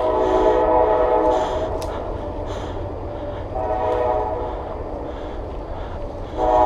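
A train horn sounding a chord in long blasts: one dies away about two seconds in, a weaker one follows around four seconds, and another starts loudly near the end, over a steady low rumble.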